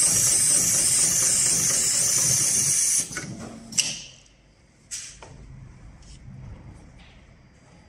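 HighTex 71008R heavy-duty automatic rope sewing machine running its stitch pattern on a climbing rope, a steady run with a high hiss and a low hum that stops abruptly about three seconds in. A few short, sharp hisses and clicks follow, the loudest just before four seconds and another near five.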